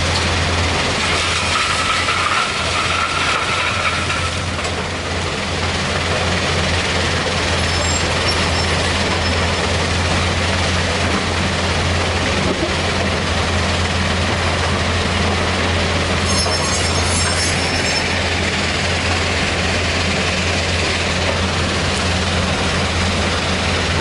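Heavy diesel machinery running steadily: a Kobelco hydraulic excavator working beside a stone crusher, a constant low engine drone with a higher whine for a few seconds near the start.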